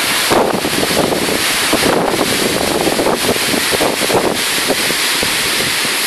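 Wind buffeting the microphone over the steady rush of Indian Ocean surf breaking on the rocks far below.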